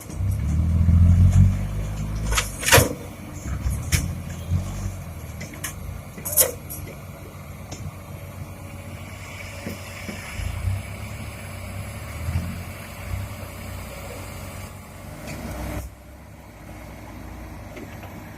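Heavy diesel machinery at work as a Komatsu PC200 excavator loads a dump truck: deep engine rumble that swells loudly in the first two seconds, with sharp knocks about three and six seconds in. A hiss comes in around the middle and stops suddenly near the end.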